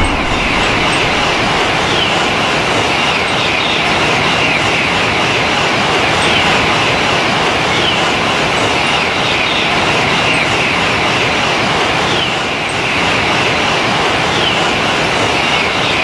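A train running past: steady, loud rolling noise of wheels on the rails, with a pattern recurring about every two seconds.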